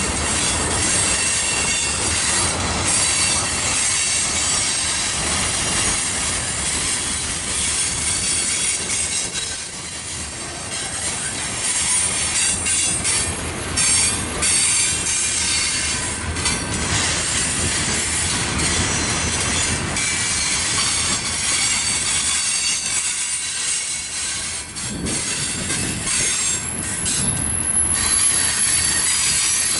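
Freight cars of a mixed freight train rolling by: steel wheels running on the rails with a steady rumble, a thin high squeal of the wheels, and occasional knocks as the cars pass.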